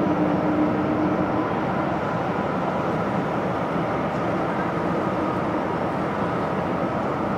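Jet engines of a taxiing twin-engine airliner running at idle: a steady rumbling hiss with a faint whine, and a low hum that fades out in the first couple of seconds.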